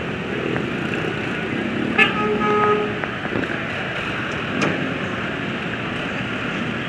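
Steady noise of congested road traffic, with a vehicle horn honking for about a second about two seconds in.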